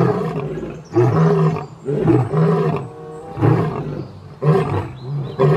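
Male lion roaring: a series of deep roars about a second apart.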